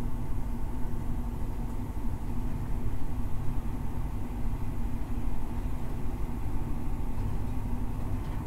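High Speed Train (InterCity 125) on the move: a steady low rumble with a steady engine hum running through it.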